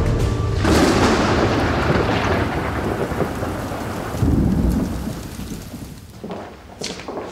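Thunder over rain: a sudden thunderclap about a second in rolls away slowly, a second low rumble follows about four seconds in, and the storm fades out near the end.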